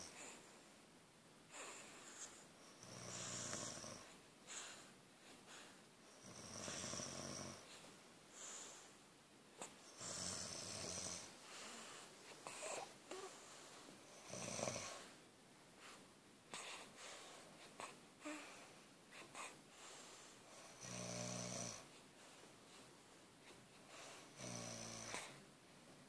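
Quiet snoring from sleepers, a low raspy snore about every three to four seconds with softer breathing between.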